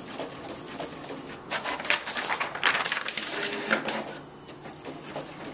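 Brother printer running a print job: a busy stretch of rapid mechanical clicks and rattles from about a second and a half in to about four seconds in.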